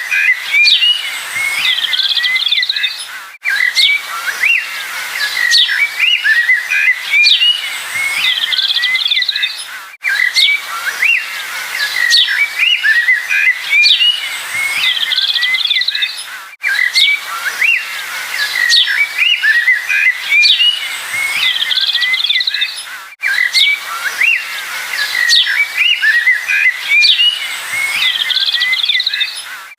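Dense chorus of small birds chirping and twittering, with many short rising and falling calls. It is a short recording looped: the same stretch of song repeats about every six and a half seconds, with a brief drop at each seam.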